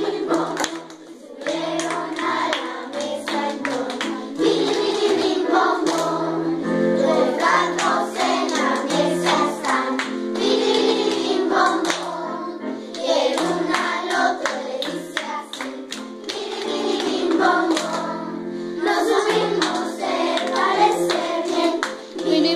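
Children's choir singing a round together, with hand claps through the song.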